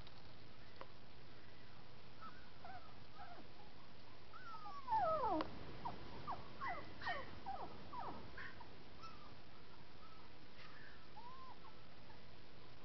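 Young puppies whining, a string of high cries that slide down in pitch. The loudest, longest cry falls steeply about five seconds in, followed by several shorter falling whines.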